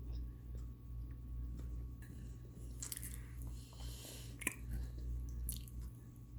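Someone biting and chewing crunchy microwaved cornstarch chunks, with a few crisp crunches around the middle, over a steady low hum.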